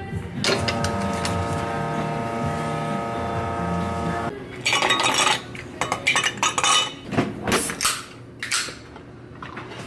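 Glass and ice clinking on a cafe counter: a run of sharp clinks and clatters from about halfway through, as iced glass mugs are handled. Before that a steady hum runs for about four seconds.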